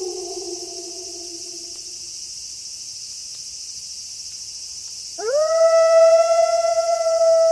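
Wolf howling at night: one howl slides down and fades out about two seconds in, then after a pause a new howl swoops up and holds a steady note. A steady high hiss of night insects runs underneath.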